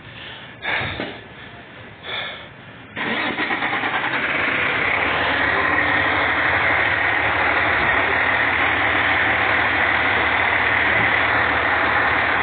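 Pierce fire truck's diesel engine starting about three seconds in, then running steadily at idle.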